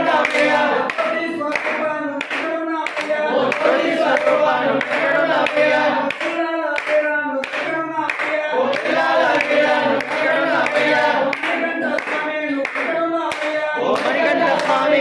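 A group of male voices singing a devotional bhajan together, with steady rhythmic hand-clapping keeping time.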